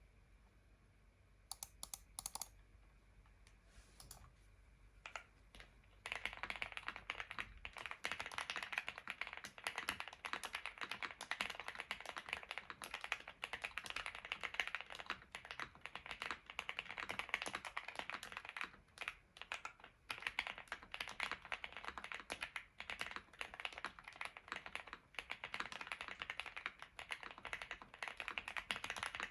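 Custom Owlabs Mr. Suit mechanical keyboard with lubed and filmed JWK linear switches on an FR4 plate, being typed on. A few separate keystrokes come first, then steady fast typing from about six seconds in.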